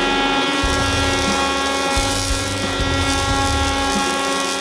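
Woodworking jointer running with a steady high whine while a board is pushed on edge along its fence across the cutterhead, with irregular low rumbles from the cutting.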